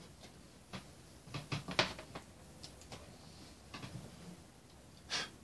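Scattered light clicks and taps from a wire and a soldering iron being handled at a plastic terminal block, with a cluster of them a second or two in and a slightly louder one near the end.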